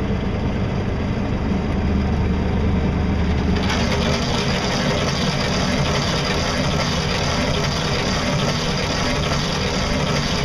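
Small boat under way on its electric drive, a Leeson 1 hp 24-volt DC motor: a steady motor hum under the rush of water and wind past the hull. The rushing grows brighter and hissier about four seconds in as the boat picks up speed.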